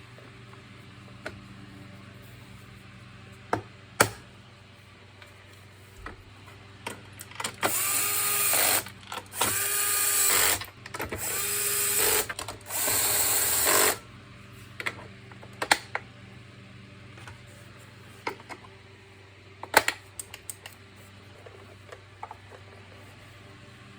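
Electrolux UltraSilencer vacuum cleaner's motor switched on and off four times in quick succession, each run about a second long and starting with a rising whine. This tests the repaired on/off switch. A few sharp clicks come before and after the runs.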